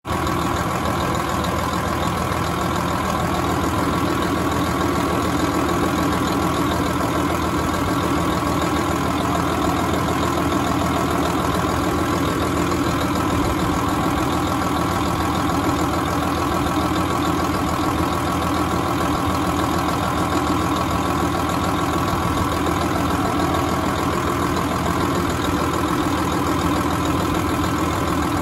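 Tractor's diesel engine idling steadily, with its engine-driven cooling fan turning.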